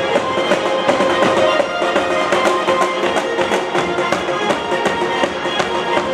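Instrumental music with a steady percussive beat under held melody notes.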